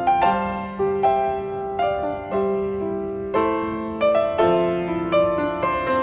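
Background piano music: a slow, gentle melody of single struck notes and chords, each ringing and fading before the next.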